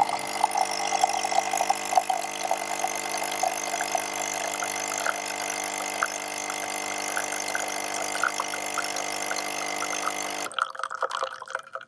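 De'Longhi Lattissima Touch Nespresso machine's pump running steadily as it brews a lungo through the capsule, with a thin high tone over the hum. It cuts off suddenly about ten and a half seconds in, leaving a few quiet drips.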